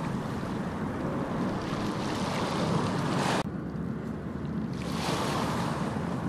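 Steady rushing background noise, even and without any tone or rhythm. About three and a half seconds in, its hiss is abruptly cut back, and it builds again over the next second or two.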